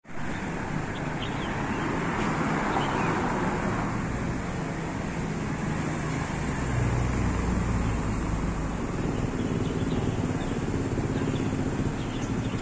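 Street traffic noise: a steady hum of road noise, with a vehicle's engine rumbling past about halfway through.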